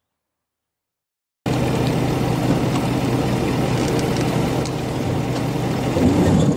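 Silence, then about a second and a half in a steady engine idle cuts in abruptly and keeps running evenly.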